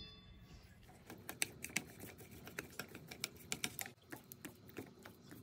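Wooden chopsticks clicking against each other and tapping a stainless steel bowl while tossing sliced chicken breast cartilage: a quick, irregular run of light clicks starting about a second in, thinning out near the end.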